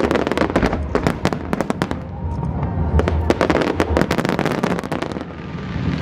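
Fireworks display: a rapid barrage of aerial shells bursting and crackling, many sharp bangs a second over a continuous low rumble. The bangs thin out near the end.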